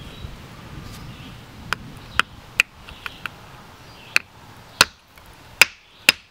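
Hand hammer striking a garnet-bearing rock to split it: a series of about eight sharp, separate knocks at an uneven pace, the hardest blows coming near the end.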